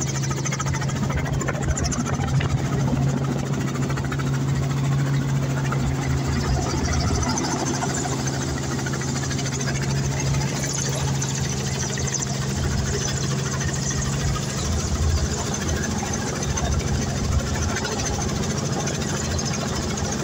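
Helicopter in flight heard from inside the cabin: steady engine and rotor noise, with a low pulsing beat underneath from the rotor blades.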